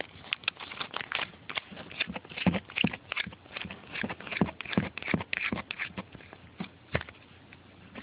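Irregular clicks and taps of a small pressure-washer quick-disconnect fitting and hose end being handled and screwed together, with one sharper click near the end.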